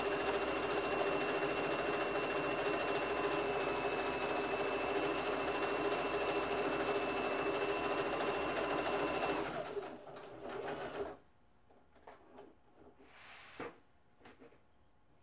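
Electric household sewing machine running steadily as it stitches through a woven fabric panel, then stopping about two-thirds of the way in. After it stops, quiet clicks and rustles are heard as the fabric is shifted.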